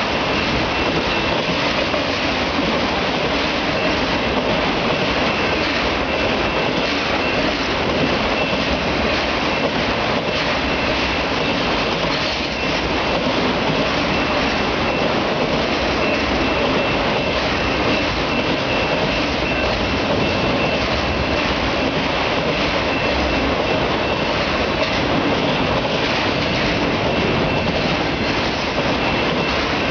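A freight train of autorack cars rolling past: steady wheel-on-rail noise and clatter, with a faint, steady high-pitched ring over it.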